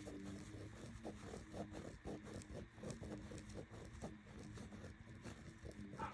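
Faint, irregular scratching and small ticks of a pen or marker drawing on paper, over a low steady hum.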